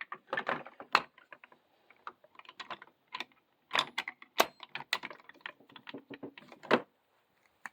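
Chrome sockets and a 1/2-inch-drive extension being handled: irregular sharp clicks and light metal clinks as a 15/16 shallow socket is pulled from its holder and pushed onto the extension.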